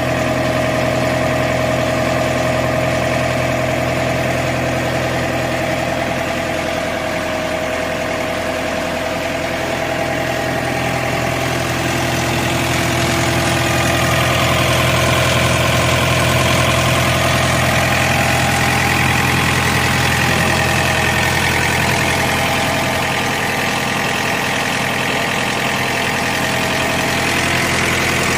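Screw air compressor running with a steady machine hum, growing a little louder and brighter around the middle before settling back.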